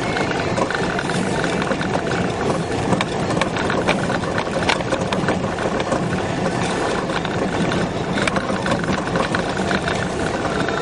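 Peugeot car driving over a rough, potholed dirt track, heard from inside: engine running steadily, with frequent small knocks and rattles from the body and suspension over the bumps.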